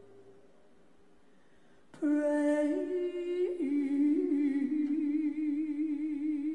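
A woman's solo gospel voice, after a short hush, comes in about two seconds in with a long wordless sung note that steps and slides between pitches with a slow vibrato.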